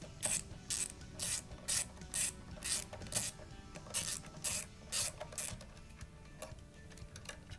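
Ratcheting screwdriver backing a screw out of a folding stock adapter. Its clicks come in short bursts about twice a second with each back-and-forth turn, then grow fainter over the last two seconds.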